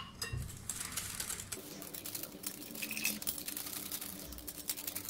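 Wire whisk beating cake batter in a glass bowl: rapid light clicks and scrapes of the wires against the glass.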